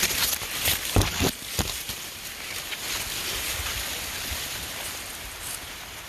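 Dry corn leaves and husks rustling, with a few sharp crackles in the first second and a half as the plants are handled, over a steady rush of wind noise on the microphone.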